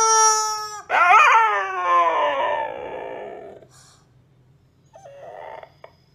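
A rubber chicken toy squeezed once, a flat steady squawk lasting about a second. A husky answers with one wavering howl that rises and then falls over nearly three seconds.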